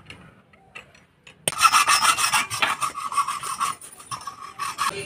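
Hand threading of a steel pipe with a die stock: harsh metal-on-metal rasping and grinding as the die cuts the thread, starting suddenly about a second and a half in after a few faint clicks.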